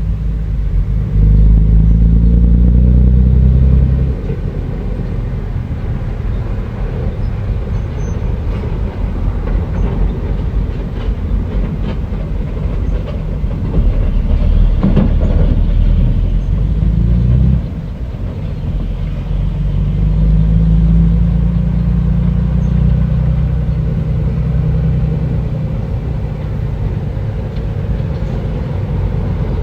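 Bulldozer's diesel engine running under load, revving up with a rising pitch about a second in and again a little past the middle, then settling back.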